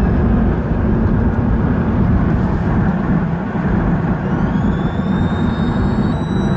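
A 2000 Jeep Cherokee's 4.0-litre straight-six running steadily, with a thin high-pitched whistle that drops away, then climbs back in about two-thirds through and holds. The whistle is the noise the owner suspects is a vacuum leak.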